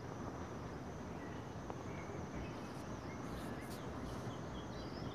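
Outdoor ambience: a steady low rumble and hiss with a thin, steady high-pitched buzz, and a few faint bird chirps near the end.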